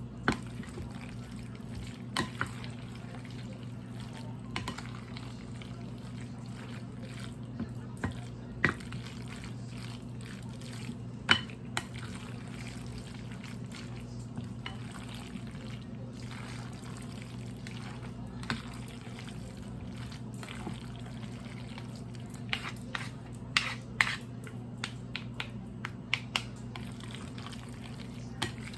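Mayonnaise-coated macaroni salad being stirred in a bowl: soft wet squelching with scattered irregular clicks of the utensil against the bowl, over a steady low hum.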